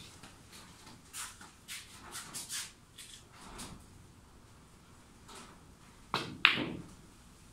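Footsteps, then a snooker shot: the cue tip strikes the cue ball, and a louder, sharp clack of the ball follows about a third of a second later.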